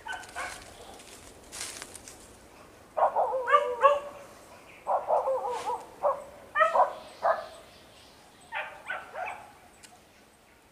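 Hunting dogs barking and yelping in about four short bouts, the calls high and wavering in pitch.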